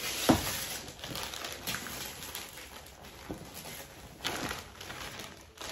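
Wrapping paper rustling, crinkling and tearing as a wrapped gift box is unwrapped by hand. A single knock comes near the start.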